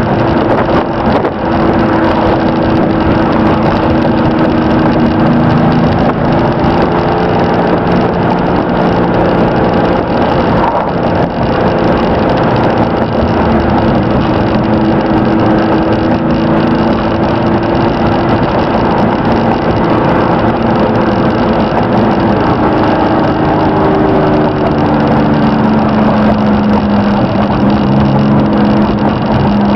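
Cab interior sound of a 1992 Chevrolet S10 pickup under way: its 2.8 V6 engine running with road noise, the engine note rising and falling in pitch several times.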